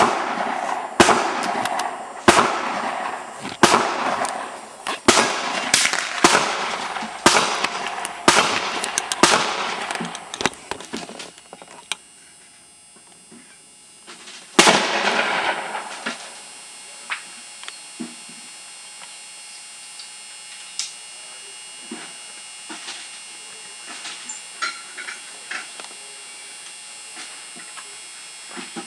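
Ruger 10/22 semi-automatic .22 LR rifle firing fast, roughly one to two shots a second, for about eleven seconds. It stops, fires one more shot a few seconds later, then only faint small clicks follow.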